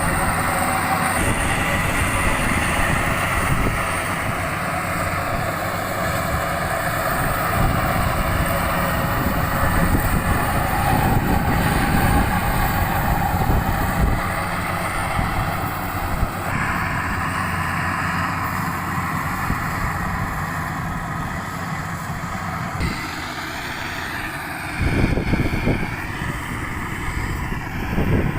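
Bimo 102 rice combine harvester running steadily, engine and machinery working through the crop, with louder low surges near the end.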